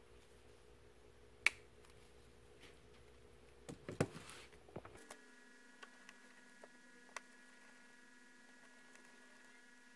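Faint clicks and taps of small parts and tools being handled during phone reassembly: one sharp click about a second and a half in, a cluster of taps and rustling around four seconds, then a few light clicks.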